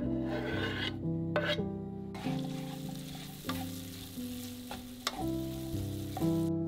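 Sliced onions tipped into a hot pan of oil and sizzling, stirred and scraped with a wooden spatula; the sizzle grows louder about two seconds in. Background music with plucked notes plays throughout.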